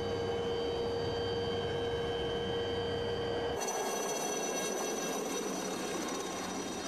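Light helicopter's turbine engine and rotor running steadily, with a high, steady whine. The sound changes abruptly about three and a half seconds in, at a cut between shots.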